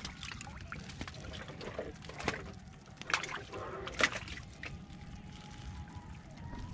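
A bamboo fish trap being handled against a wooden boat: a few sharp, irregular knocks, with some water sloshing and dripping.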